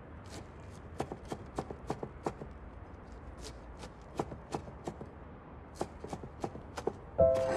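Cleaver chopping vegetables on a wooden cutting board, in three quick runs of strikes at about four a second with short pauses between them. Soft background music comes in near the end.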